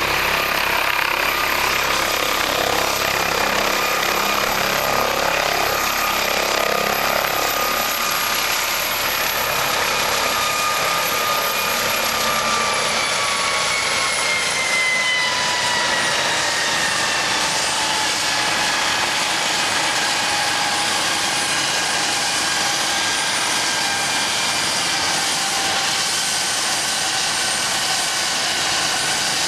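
McDonnell Douglas MD 900 Explorer helicopter setting down, its rotor turning and its twin turboshaft engines giving a steady whine. About halfway through, the whine falls in pitch over several seconds and then holds lower as the engines wind down after touchdown, with the rotor still running.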